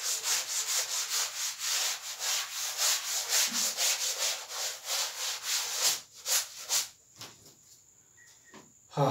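A chalkboard being wiped clean with an eraser in fast back-and-forth rubbing strokes, about four a second. The strokes stop about six to seven seconds in, leaving a few faint scrapes.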